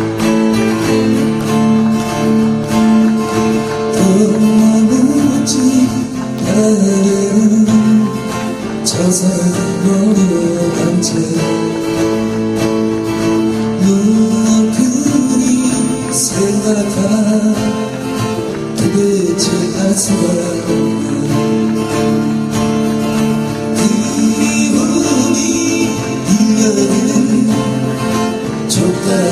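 Live music: an acoustic guitar playing with a man singing a slow melody.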